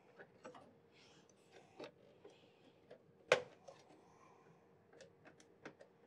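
Faint ticks and clicks of a screwdriver driving motherboard mounting screws into a PC case, with one sharper click about three seconds in.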